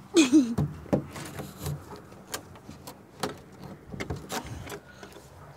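Handling noise from a phone held against a wooden surface: scraping, with scattered taps and knocks. The loudest burst comes right at the start.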